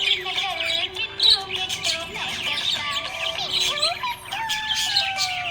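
Budgerigar chirping and warbling in a rapid, continuous stream of short high chirps.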